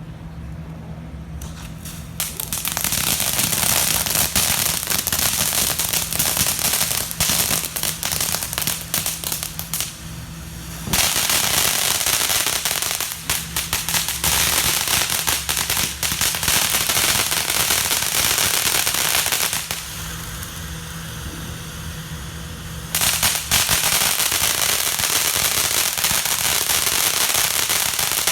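Firecrackers going off in long, rapid crackling strings, with a brief dip about ten seconds in and a quieter lull of a few seconds about twenty seconds in before the cracking resumes.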